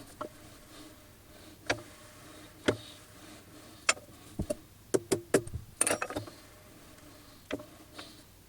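Irregular sharp clicks and knocks, about a dozen, of small hard objects being handled, with a quick cluster around five to six seconds in.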